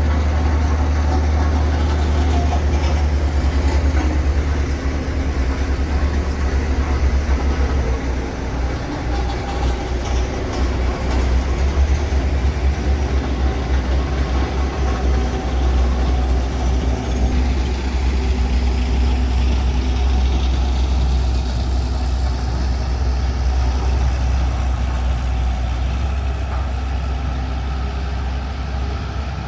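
Diesel engine of a heavy road-construction machine running steadily, with a deep low rumble.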